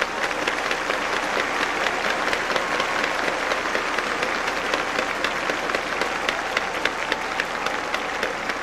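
Large stadium crowd applauding steadily: a dense, continuous patter of many hands clapping.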